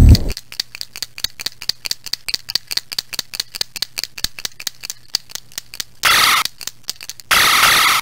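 A shaken paint marker, its mixing ball rattling in rapid, even clicks at about six or seven a second. The rattling gives way to two bursts of harsh noise, one about six seconds in and one starting near the end.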